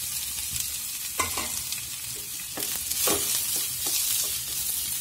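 Chopped onions sizzling in hot oil in a kadai, stirred with a wooden spatula that scrapes the pan a few times.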